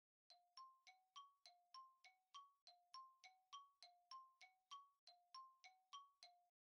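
Faint quiz thinking-time sound effect: a quick, even run of short chime notes, about three a second, alternating between two pitches and stopping near the end.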